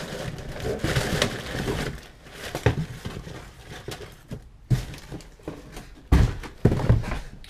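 Cardboard box and plastic wrapping rustling as a shipping box is unpacked, with a few sharp knocks, then several heavy thumps about six seconds in as a boxed pair of shoes is lifted out and the box is handled.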